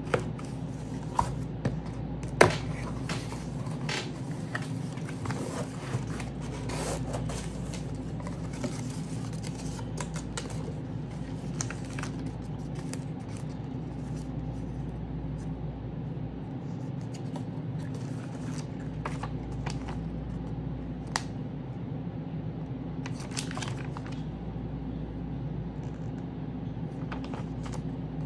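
Unboxing a car speaker: packaging is handled with scattered clicks, scrapes and rustles, a few sharp clicks in the first seconds, over a steady low hum.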